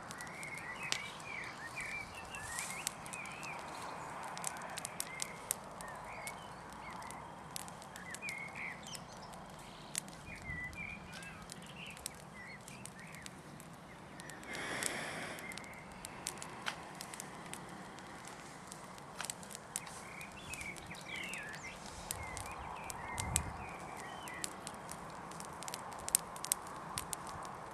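A smoky fire of fresh green branches crackling with many sharp, irregular pops, with birds chirping in the background.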